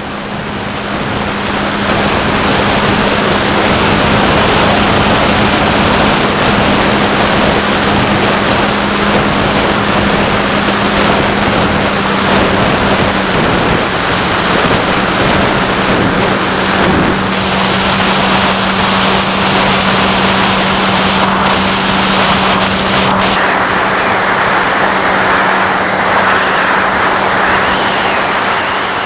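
Onboard sound of a SkyHunter FPV plane in flight: the electric motor and pusher propeller hum steadily under a loud rush of wind, the hum shifting slightly in pitch a couple of times as the throttle changes.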